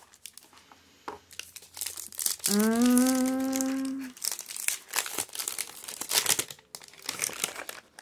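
White paper wrapping crinkling and rustling as a bar of Nag Champa soap is unwrapped and handled. About two and a half seconds in, a woman's voice holds one long hum for about a second and a half.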